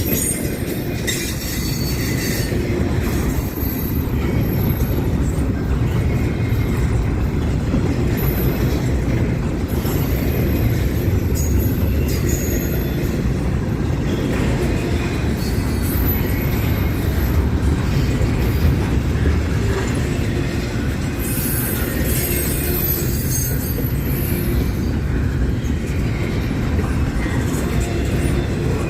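Freight cars of a passing CSX train rolling by: a steady low rumble of steel wheels on rail, with brief high-pitched wheel squeals now and then.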